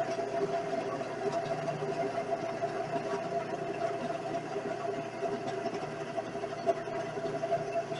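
Vevor 7x14 mini metal lathe running steadily, its motor and gear drive giving an even whine.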